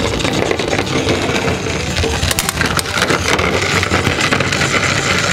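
Motorized toy Jeep (Tonka Climb-Overs) running along plastic snap-together track: its small battery motor whirs while its plastic wheels rattle and clatter over the ridged track, with a few sharp clacks about two and a half seconds in.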